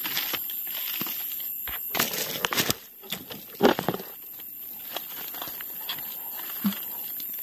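Dry leaf litter and twigs rustling and crackling, with two clusters of crunches about two and three and a half seconds in.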